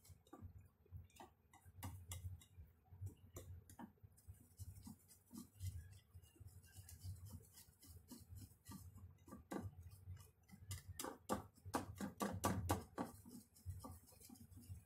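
Wire whisk beating thick cake batter in a bowl: irregular light clicks of the wires against the bowl over soft, dull thuds. The strokes get busier and louder about two-thirds of the way through.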